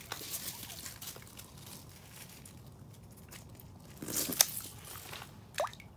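Crunching and rustling of packed snow and slush as a small sturgeon is pushed over the snow and down an ice-fishing hole. About four seconds in comes a louder burst of crunching with a sharp knock.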